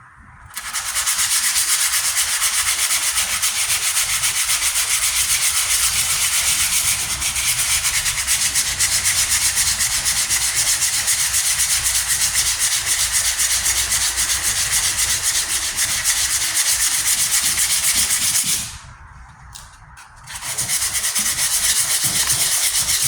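120-grit sandpaper rubbing over the primed metal patch of a truck tailgate in quick, steady back-and-forth strokes, wearing down scratches in the primer. The sanding stops for about two seconds near the end, then starts again.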